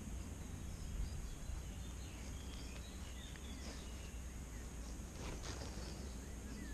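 Quiet lakeside ambience: a steady low rumble with faint bird chirps and a couple of soft rustles.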